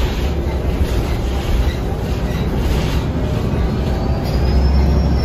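Cabin noise inside a moving MAN NG363F articulated bus: a steady low drivetrain and road rumble with light rattles from the cabin fittings. A faint high whine rises near the end.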